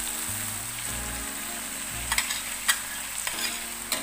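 Dried anchovies and tempe frying in a wok with sweet soy sauce, a steady sizzle, with a few sharp clicks of a metal utensil against the pan in the second half.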